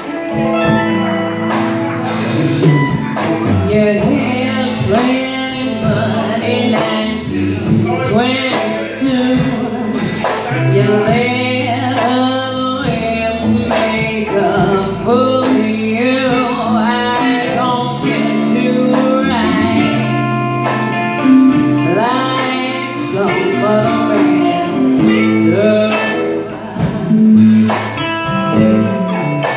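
Live blues band playing: a woman singing over electric guitars, bass guitar and a drum kit.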